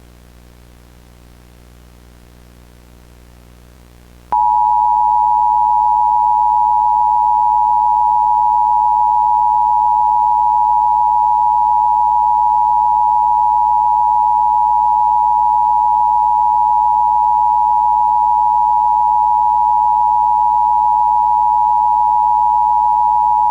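Emergency Broadcast System attention signal: a loud, steady two-note electronic tone that starts abruptly about four seconds in, after a faint low electrical hum, and holds unchanged.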